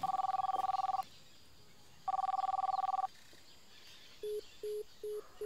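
Telephone ringback tone of an unanswered phone call: a steady two-note tone that sounds for about a second, twice, with a second's gap between. About four seconds in it gives way to short, lower beeps, about three a second, as the call fails to connect.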